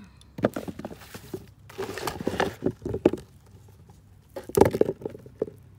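Potatoes being dug out of garden soil by hand: earth scraping and rustling in three bursts, with sharp knocks as potatoes drop into a plastic basin, the loudest about four and a half seconds in.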